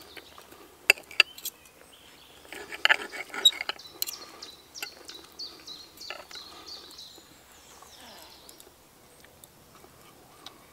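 Knife and fork clinking and scraping against a ceramic plate while cutting into a pan-fried potato: a few sharp clinks about a second in, a busy run of scraping and clinks around three seconds in, then scattered clinks that stop after about six seconds. Quick high chirps run in the background through the middle.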